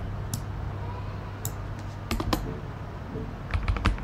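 Typing on a computer keyboard: scattered single keystrokes, a small cluster about two seconds in, and a quicker run of keys near the end.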